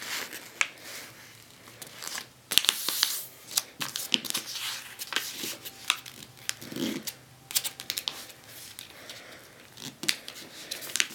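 A sheet of paper being folded and creased by hand: irregular rustling and crinkling with sharp creasing strokes as the folds are pressed down.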